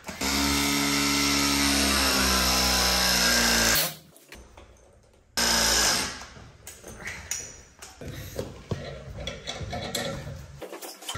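Battery-powered pipe press tool running as its jaws crimp a brass press fitting onto a plastic heating pipe: a steady motor sound for about three and a half seconds, its pitch sagging slightly under load, then a second, shorter run about five seconds in. Faint clicks of fittings being handled follow.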